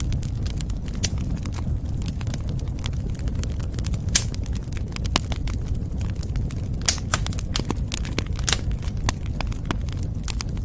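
Wood fire crackling, with a steady low rumble of burning beneath irregular sharp pops and snaps; a few louder pops come about four, seven and eight and a half seconds in.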